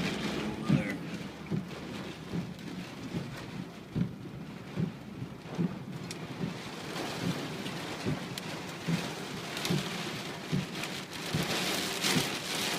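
Rain falling steadily, with frequent irregular thuds of heavy drops striking close by. It grows heavier about three quarters of the way through.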